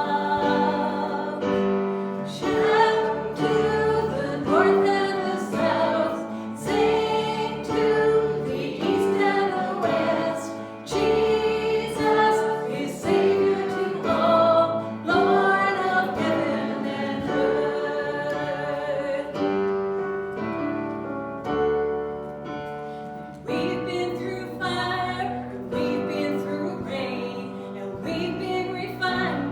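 A group of voices singing a hymn together, accompanied by piano.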